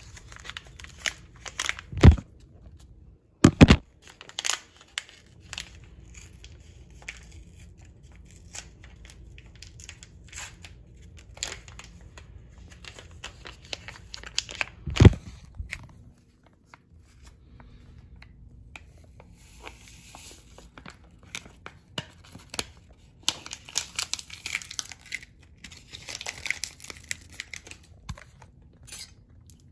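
A hot chocolate mix packet being handled, crinkled and torn open, with a few sharp knocks in the first half. Denser rustling and crinkling follows in the last third as the powder is emptied into a mug.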